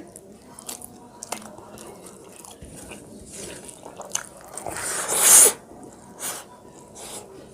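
A person eating rice and fish curry: wet chewing and small lip-smacking clicks, with one loud hissing rush about five seconds in.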